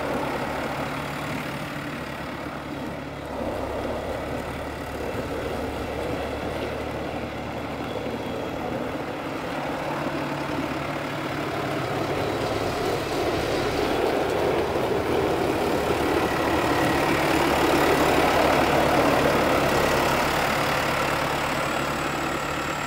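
Valtra XM tractor's diesel engine running as the tractor drives about, growing louder in the second half and loudest a few seconds before the end as it comes close.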